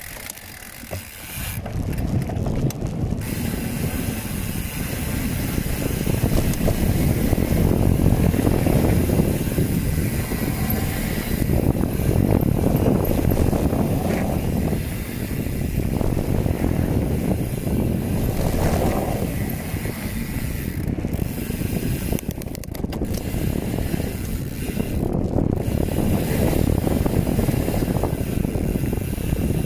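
Mountain bike being ridden down a rough downhill trail: a steady, dense rattle and clatter of the bike and tyres over the ground, quieter for the first second or so as it gets going.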